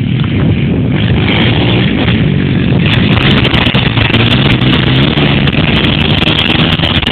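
Thumpstar 125cc four-stroke pit bike engine running under load as the bike is ridden across grass, its pitch wavering up and down with the throttle.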